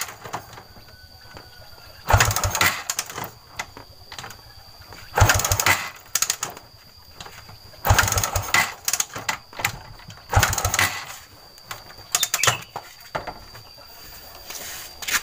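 Suzuki Shogun 125 engine being kick-started about five times, each kick a second-long burst of cranking with clicks, turning over without starting. The kicks make spark at the orange feed wire into the CDI to test the ignition.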